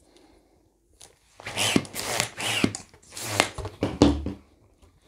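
Qualatex balloon hand pump inflating a 5-inch latex round balloon. A run of about three rushing pump strokes, each about half a second long, starts about a second and a half in. Three strokes fill the balloon to about 4 inches.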